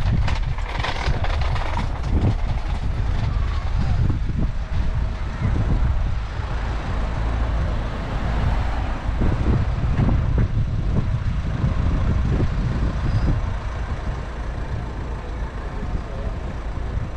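Street traffic: motor vehicles running and passing, with the low engine rumble of a bus or truck.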